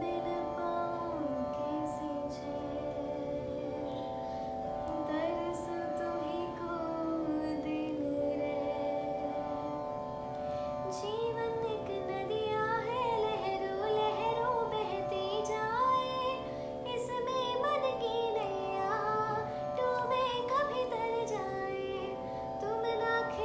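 Wordless Indian-style melody over a steady sustained drone: a soft, gliding line in the lower register, rising into a higher, more ornamented melody about halfway through, the introduction to a Hindi song.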